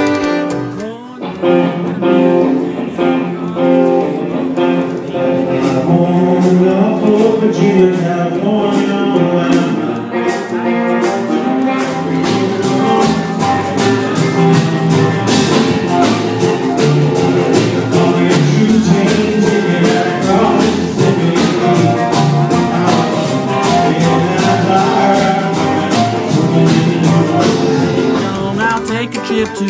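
Acoustic string-band music with guitar. A steady clicking beat enters about six seconds in, and the accompaniment grows fuller from about twelve seconds.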